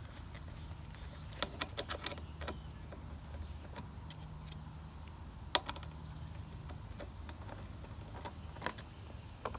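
A few light clicks and knocks, a cluster about a second and a half in, one sharper click past the middle and another near the end, over a steady low hum.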